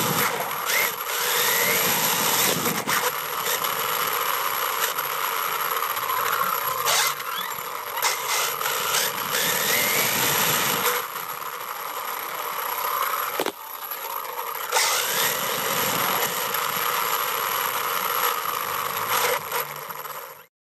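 HPI WR8 Flux RC rally car's brushless electric motor and gears whining, rising and falling in pitch as the car repeatedly speeds up and slows, recorded from on the chassis over the rush of tyres on pavement, with a few sharp knocks from bumps. The sound cuts off abruptly near the end.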